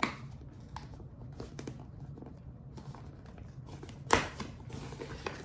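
Fingers picking and scratching at the sealed cardboard packaging of a keyboard box, with faint small clicks and one louder, sharp tearing sound about four seconds in.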